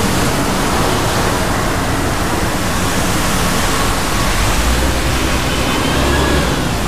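Steady hiss of light rain falling on wet paving, with a low rumble underneath.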